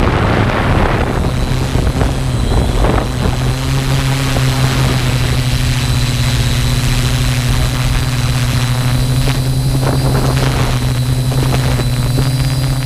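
Camera drone's propellers running steadily: a loud, even low hum with a thin high whine above it.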